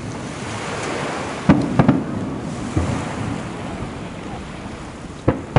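Aerial firework shells bursting in sharp booms: two close together about a second and a half in, another about a second later, and a last one near the end, over a steady noisy background.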